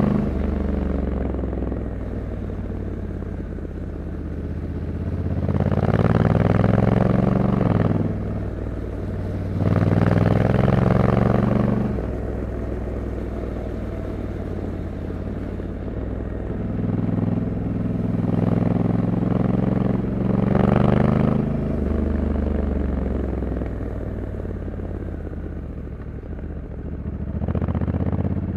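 2021 Honda Africa Twin 1100 DCT's parallel-twin engine running on the road, pulling harder with its pitch climbing several times and easing off between, with steadier cruising in the gaps.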